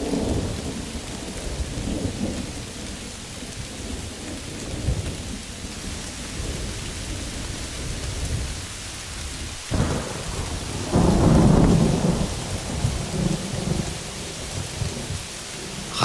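Steady rain pouring down, with thunder rumbling underneath; the loudest roll of thunder comes about eleven seconds in.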